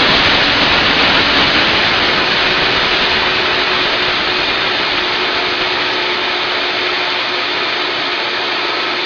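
A 3-horsepower commercial blender running steadily at full speed while it grinds dry beans into flour, a loud, dense whirring that eases slightly over the stretch.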